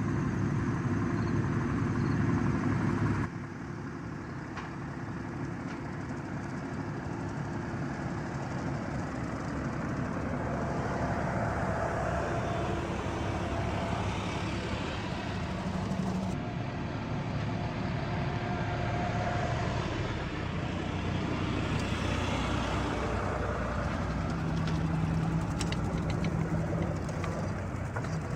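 Tractor engine running steadily, with an abrupt change in the sound about three seconds in, like a cut between clips.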